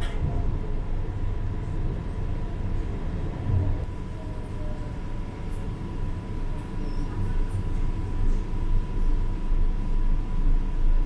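Interior running noise of a TCDD E23000 electric multiple unit: a steady low rumble of wheels on track with a thin, steady whine over it. The rumble grows a little louder in the last few seconds.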